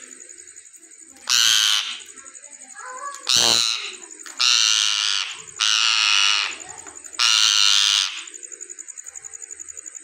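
Rose-ringed (Indian ringneck) parakeet giving five loud, harsh calls, each under a second long, with short gaps between them.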